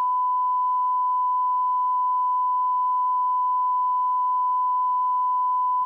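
Steady, pure test tone: the audio line-up reference tone recorded with grey-scale test bars at the head of a videotape. It holds one pitch at an even level and cuts off suddenly near the end.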